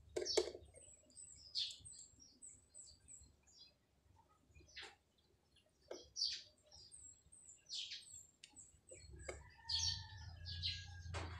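Small birds chirping and twittering in short high notes, with a few sharp clicks and taps from wires and small electrical parts being handled, the loudest just after the start and near the end. A brief steady two-note tone sounds about nine seconds in.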